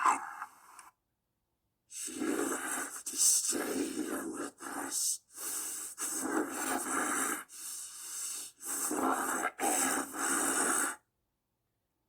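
Horror-style demonic sound effect of raspy, wheezing, hissing breaths: several long, rough breaths one after another for about nine seconds, with no clear pitch. It starts and stops abruptly out of dead silence.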